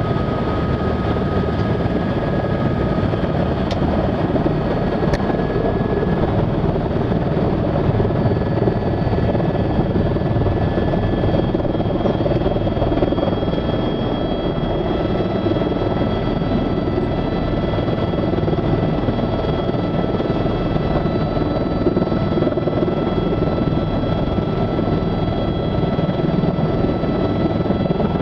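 Helicopter engine and rotor running steadily, heard from inside the cabin: a dense rumble with a steady high whine over it.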